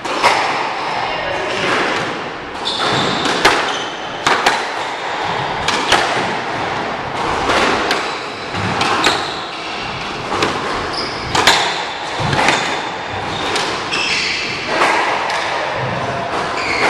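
A squash ball cracking off racquets and the court walls, a sharp knock every second or so. Sneakers squeak now and then on the hardwood court floor.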